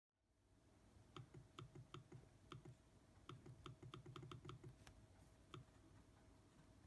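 Apple Magic Trackpad's haptic Force Touch click, clicked a dozen or so times: each a faint low thump with a sharp tick. The clicks come at an uneven pace, quickening to a quick run around the middle.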